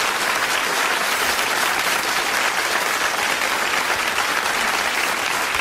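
Studio audience applauding steadily, a dense clatter of many hands clapping.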